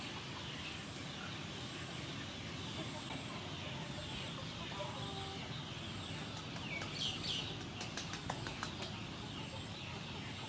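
Birds calling over a steady background hiss: clucking fowl and a few short chirps, with a cluster of faint clicks about two-thirds of the way through.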